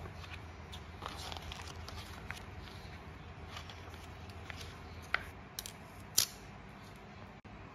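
Paper pages of a printed instruction booklet being turned and handled, rustling, with two sharp clicks about five and six seconds in, over a low steady hum.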